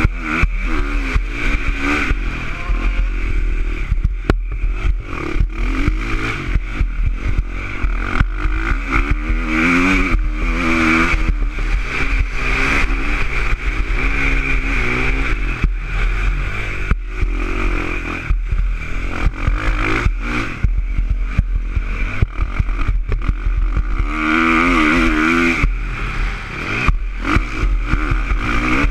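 KTM 450 SX-F motocross bike's single-cylinder four-stroke engine, heard from on the bike, revving up and falling off again and again as it is ridden hard through the gears, with a steady low rumble and frequent short knocks underneath.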